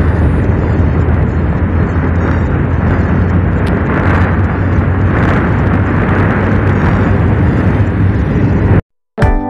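Steady wind noise on the microphone of a Bajaj Pulsar 150 motorcycle riding at highway speed, with a steady low engine drone underneath. It cuts off suddenly near the end, and acoustic guitar music starts.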